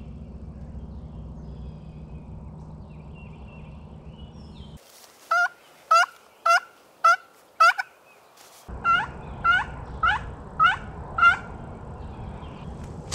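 Two runs of turkey yelps, about two a second: five sharp yelps, a pause of about a second, then six more.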